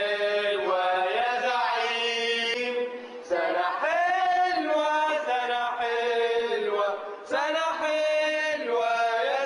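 People singing together, a chant-like tune in three long held phrases, with no clear beat.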